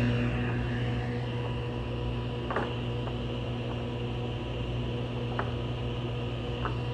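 Table saw running steadily with a motor hum and blade whine, not under load, with a few light knocks.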